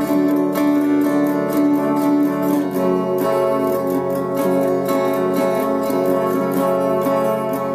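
Guitar playing an instrumental passage in an alternate tuning, picked notes ringing over sustained chords.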